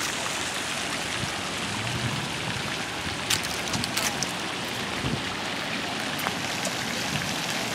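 Steady splashing rush of water from the pond's fountain aerator, with a few faint clicks a little over three seconds in.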